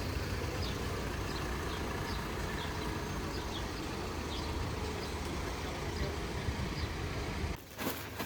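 Steady low rumble of a vehicle or city traffic, with faint short chirps above it. It cuts off suddenly near the end.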